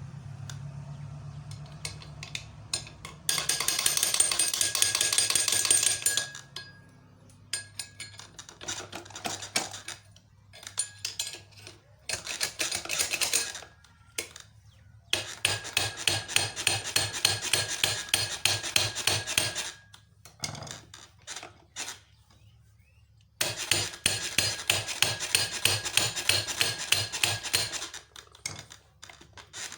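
Rapid metallic tapping and scraping in four bursts of a few seconds each, with scattered knocks between, as the sewing machine motor's pulley wheel is worked loose off its shaft.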